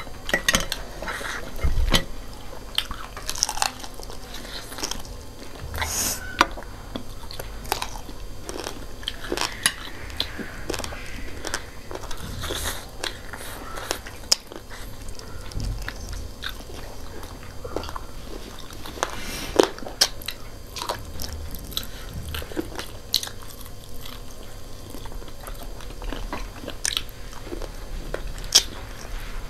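Mouth sounds of two people eating fried chicken feet and instant noodles up close: chewing and biting, with many sharp crunches scattered through.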